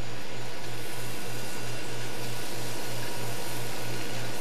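Butter sizzling in a hot steel frying pan, a steady hiss, over a low hum that pulses about three times a second.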